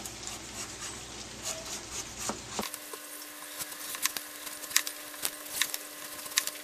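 Chef's knife trimming the skin off the sides of a butternut squash, the blade cutting down through the rind with irregular clicks and taps against a plastic cutting board.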